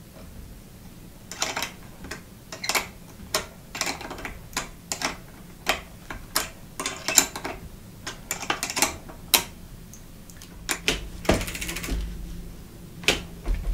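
Sharp metal clicks of a wrench working the mounting nut of a bicycle V-brake pad as the new pad is tightened, coming one or two a second and unevenly spaced, then a short rustle near the end.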